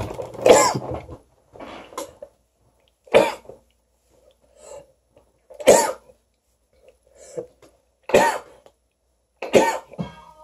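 A man coughing in a hard fit after a dab hit from a glass rig: a loud cough every two to three seconds, with smaller coughs between.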